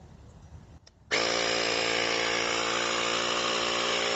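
Nulksen portable electric tire inflator switching on about a second in and running steadily at one unchanging pitch, pumping a bicycle tire up toward its 35 psi setting.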